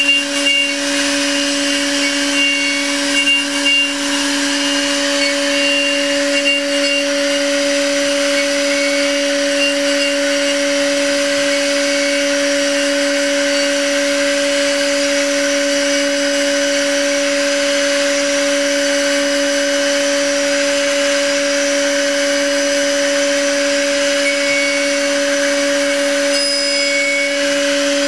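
CNC milling machine cutting wood with an 8 mm end mill on a finishing pass: a steady spindle whine over a continuous rasping cutting noise, a little uneven in the first few seconds.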